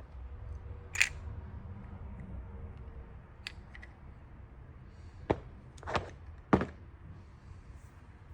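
A handful of separate sharp knocks and clicks over a low rumble, the loudest about a second in and near the end; no engine is running.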